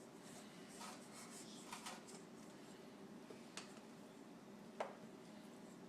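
Near silence broken by a few faint scrapes and light clicks from kitchen utensils and a baking pan being handled, the last click about five seconds in the loudest.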